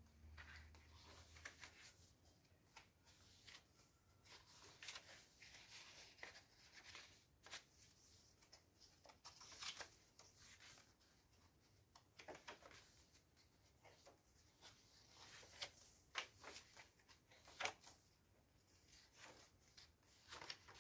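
Faint rustling and flicking of paper pages in a handmade junk journal being turned and handled: many short, irregular brushes of paper scattered throughout.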